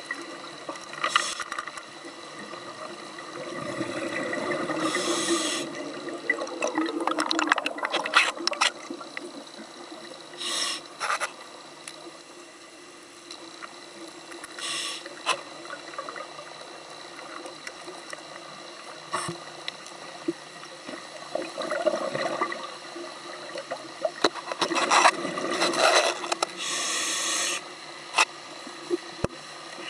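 Scuba breathing through a regulator, heard underwater: a hissing inhalation and a bubbling exhalation every few seconds, with a few clicks and knocks.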